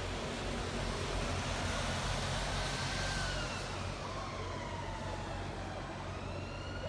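Steady city traffic noise with a faint emergency-vehicle siren, its pitch sliding down and up again.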